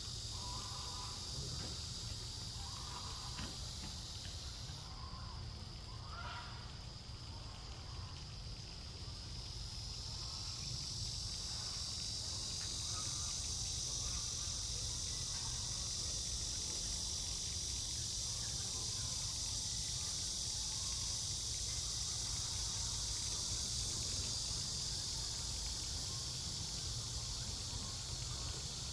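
Steady high-pitched insect chorus: one insect's song cuts off about five seconds in and another swells from about ten seconds on. A few short calls sound in the first seven seconds over a constant low rumble.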